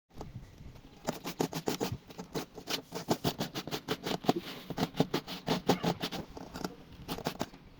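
A quick, irregular run of sharp taps and clicks, several a second, starting about a second in and thinning out near the end.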